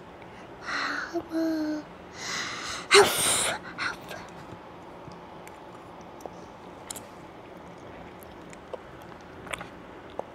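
A toddler makes a few short voiced sounds, then two breathy bursts of noise about two and three seconds in, the second the loudest. After that it is quiet apart from a few faint clicks of a fork.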